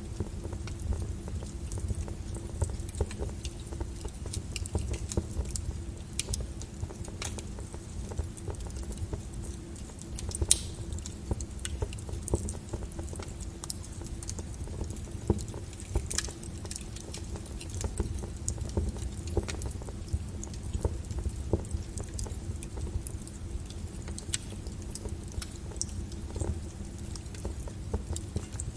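Wood burning with a small flame in a fireplace, crackling with irregular sharp pops and snaps over a continuous low rumble.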